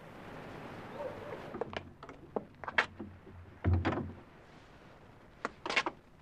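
A heavy wooden door being opened: a few sharp knocks and clicks, then a dull thud just past the middle. Near the end come a few quick clicks of boot steps on a stone floor.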